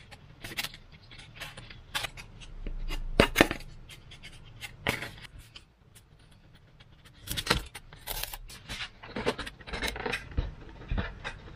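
Workbench handling noises: irregular clicks, taps and short scrapes as Depron foam pieces and small tools are handled and set down on a wooden table, the loudest scrape and knock about three seconds in.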